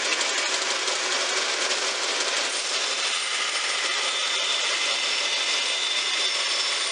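Bandsaw running steadily while a small wooden glue block is fed through the blade and trimmed.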